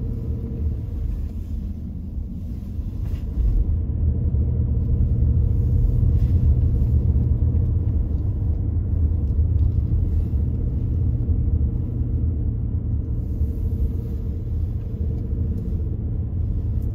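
Car driving up a winding paved road, heard from inside the cabin: a steady low rumble of engine and tyres, a little louder from about three and a half seconds in.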